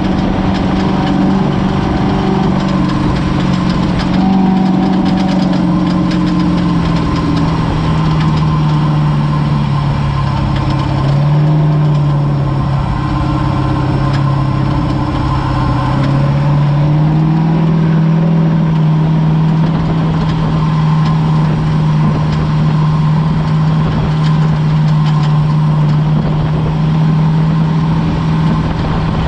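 Ford Ranger desert race truck's engine running at a steady pitch, dipping slightly a little before the middle and climbing back a few seconds later.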